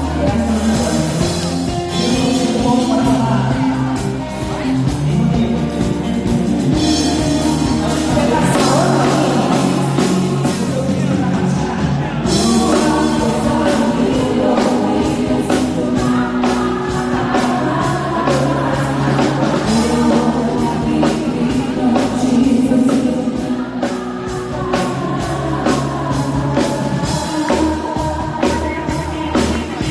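Amplified pop music with a woman singing into a handheld microphone over a steady beat, the beat getting crisper about twelve seconds in.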